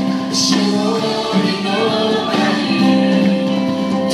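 A song sung by a group of voices together, with long held notes.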